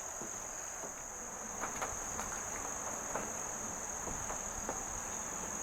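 Steady high-pitched chorus of crickets chirring, with a few faint light clicks, likely metal parts being handled, between about one and a half and three seconds in.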